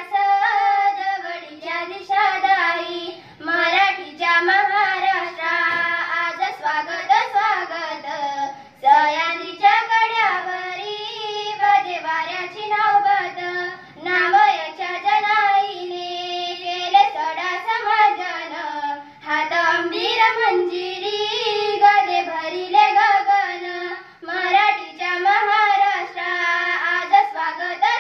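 Two schoolgirls singing a melodic song into a microphone with no instruments, in phrases broken by short breaths and some long held notes.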